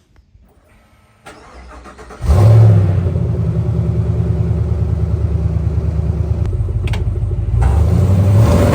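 An engine is cranked and catches about two seconds in, then runs steadily with an even pulse, picking up a little near the end.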